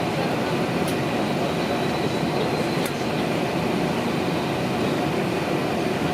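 Steady rumbling cabin noise inside an airliner after landing, with a couple of faint clicks about one and three seconds in.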